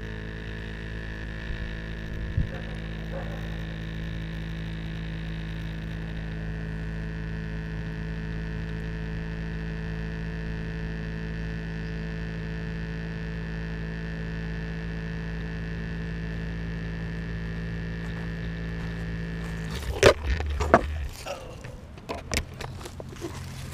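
Steady electrical hum of several fixed tones from a landed quadcopter and its brushless camera gimbal. It cuts off suddenly about 20 seconds in, followed by a few sharp knocks and rustling as the drone is picked up and handled.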